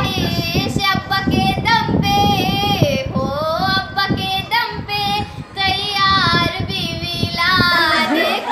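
A teenage girl singing a Hindi song solo and unaccompanied, her voice holding long notes that slide up and down in pitch.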